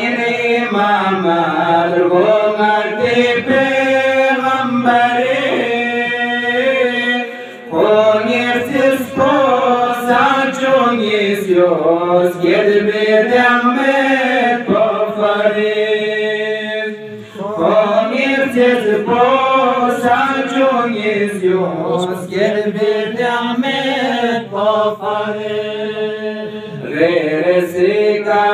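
A man's voice chanting a Balti qasida, a devotional poem, in long melodic phrases that rise and fall, with two short breath pauses.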